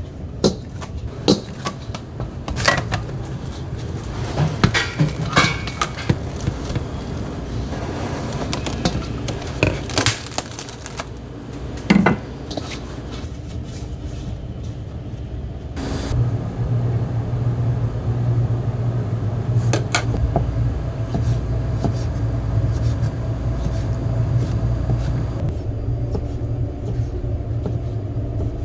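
Food-prep clatter: scattered sharp clinks and knocks of utensils and dishes, the loudest about twelve seconds in. About halfway through, a steady low machine hum starts.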